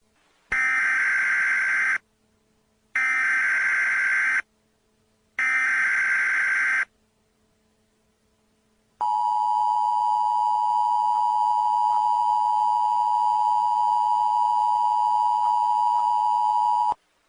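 Emergency Alert System SAME header: three bursts of digital data tones, each about a second and a half long with about a second between them, then the steady two-tone attention signal held for about eight seconds before cutting off. This sequence announces the start of an emergency alert broadcast.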